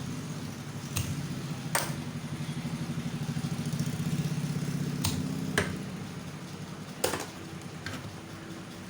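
A low mechanical hum with a fast pulse, like a small motor or engine running, swelling about midway and easing off again. About six sharp clicks or taps fall across it.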